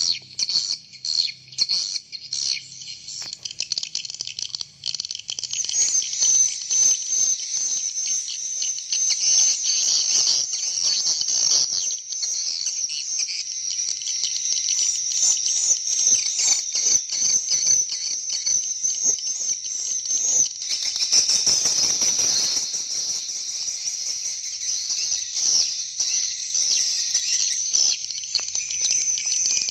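Swiftlet lure calls played through a Kiya Caberawit CR 608 swiftlet-house call amplifier from its built-in memory: dense, continuous high twittering chirps, thickening about six seconds in.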